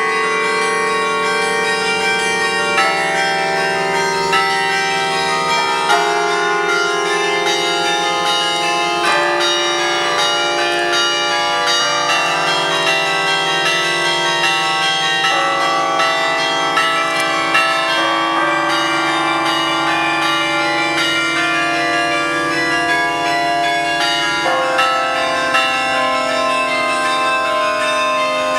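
62-bell carillon playing a tune: many bell notes struck one after another, each ringing on and overlapping the next.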